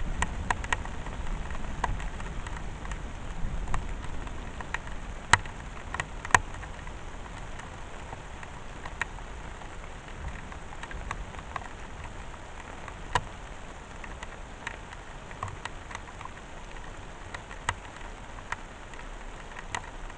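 Steady rain falling, with scattered sharp drip ticks; the loudest come about five and six seconds in and again around thirteen seconds.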